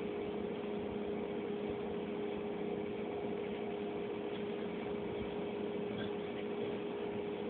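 A steady hum at one constant pitch over an even hiss, like a running machine.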